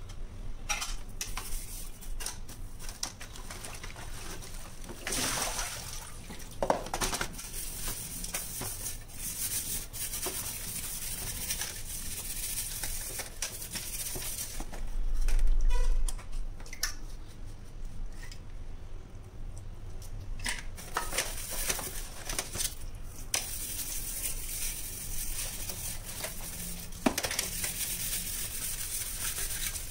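Wet steel-wool scrubber rasping over stainless-steel kitchen chimney filter plates, with scattered clanks and knocks as the metal plates are shifted in a plastic tray. A dull thump about halfway through is the loudest sound.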